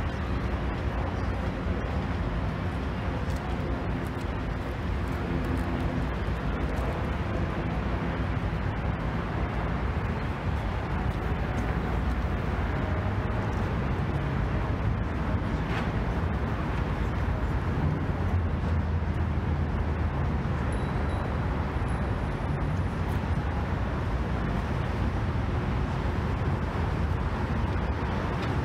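Steady city traffic noise with a low rumble, unbroken throughout.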